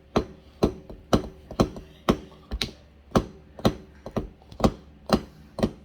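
A hammer striking a giant dinosaur egg in steady, evenly spaced blows, about two a second, to crack it open.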